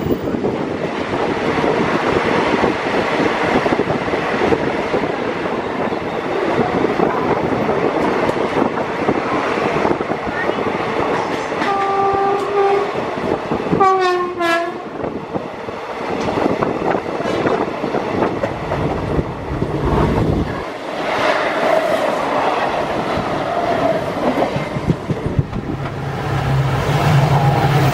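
Express passenger train running at speed, heard from inside the coach: a steady rumble and rattle of wheels on the rails. Around the middle, a train horn sounds twice briefly, the second blast dropping in pitch.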